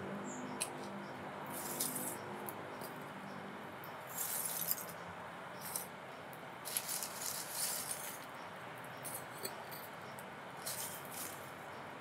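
Pieces of lump charcoal clinking and rattling as they are dropped and set on burning coals in a clay charcoal stove, in short clusters a few seconds apart.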